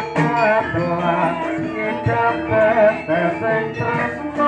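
Teenage boy singing a song into a handheld microphone, his melody bending and wavering, over steady instrumental accompaniment.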